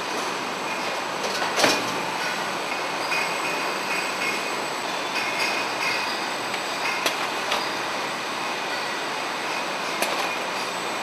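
Pallet packaging line machinery running: a steady mechanical hiss with a faint high whine, broken by a few sharp clanks, the loudest about two seconds in.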